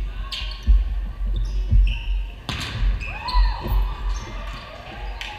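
Indoor volleyball rally on a hardwood gym floor: sneakers squeaking and feet thudding, with one sharp hit of the ball about two and a half seconds in. Players' voices call out during the play.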